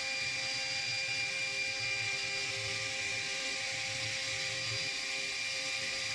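2.2 kW spindle of a CNC engraving router running steadily, a constant high whine over a hiss.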